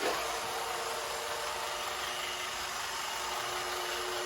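iRobot Roomba 550 robot vacuum running on a test, its motors giving a steady whir with a faint steady hum.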